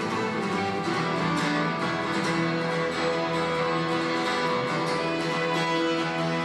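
Instrumental passage of a folk song: acoustic guitar strummed steadily, with two violins bowing held notes along with it.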